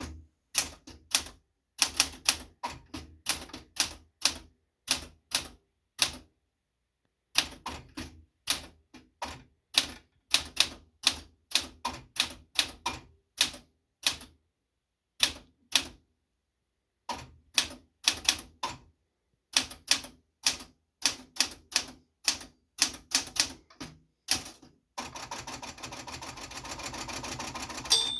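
Smith Corona Classic 12 manual typewriter being typed on: sharp key strikes, about two to three a second, in runs with short pauses. Near the end the strikes give way to about three seconds of continuous rasping, which closes with a louder clack.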